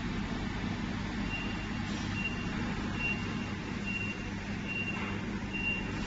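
Jewelry laser welding machine running with a steady low hum, while six short high-pitched beeps sound at an even pace of about one a second.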